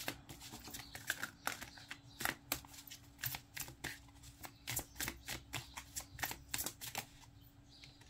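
A deck of oracle cards being shuffled by hand: quick, irregular card-on-card slaps and flicks, stopping about seven seconds in.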